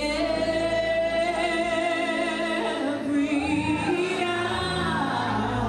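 A woman singing a worship song into a handheld microphone. She holds one long note for about three seconds, then her pitch swoops up and back down.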